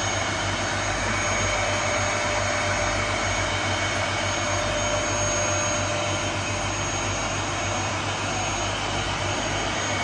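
Vacuum cleaner running steadily: an even rushing noise of its motor and airflow with a steady high whine on top.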